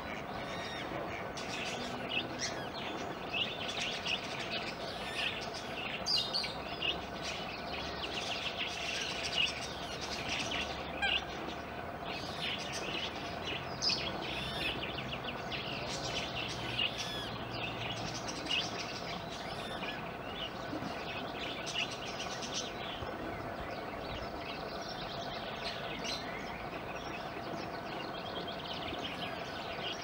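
Eurasian coot chicks peeping: many short, high chirps, closely spaced and uneven, over steady background noise.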